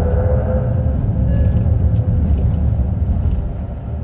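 Cabin sound of a Hyundai Ioniq 5 N accelerating hard: a deep rumble from motor and road under its synthesized engine note from the speakers. It builds to a peak and eases off near the end.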